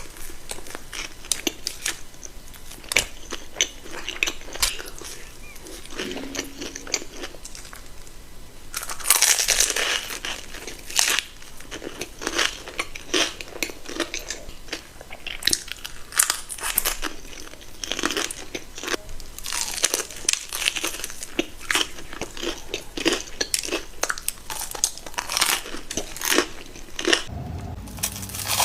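Close-up eating sounds: crisp crunching bites and chewing of a fried Korean corn dog's crunchy batter coating, with the loudest run of crunches about nine seconds in.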